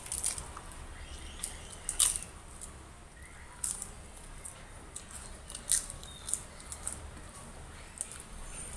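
Close-up eating sounds of crisp papad being bitten and chewed by mouth: a scattering of sharp crunches and wet mouth clicks, loudest at the start and about two seconds in.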